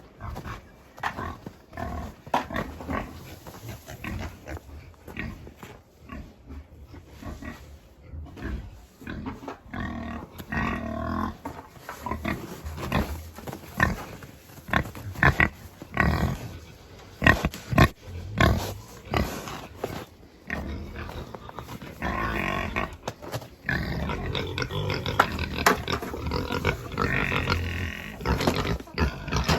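Pigs grunting and squealing, with many short knocks mixed in; the noise grows louder and busier after about twenty seconds, with higher squeals near the end.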